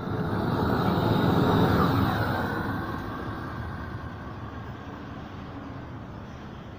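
Long-handled gas torch burning with a steady rushing flame as it heats a bituminous torch-on waterproofing membrane to bond it. The rush is louder over the first two seconds, then settles lower.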